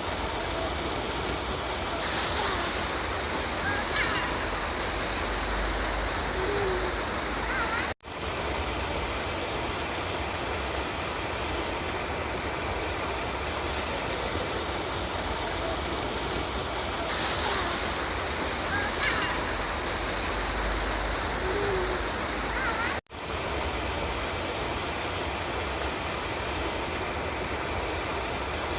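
River water rushing steadily. The sound cuts out for an instant about 8 seconds in and again about 23 seconds in, where the looped recording restarts.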